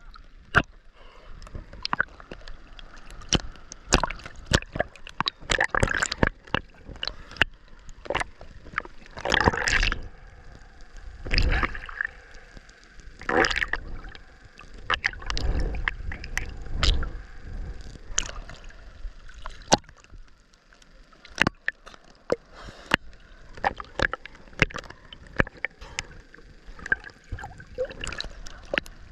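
Sea water splashing and gurgling close to the microphone, with a steady patter of sharp clicks and several louder sloshing surges in the middle of the stretch.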